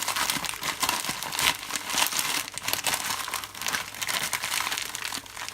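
Packaging crinkling and rustling as a mailed parcel is torn open and handled by hand, in quick irregular crackles.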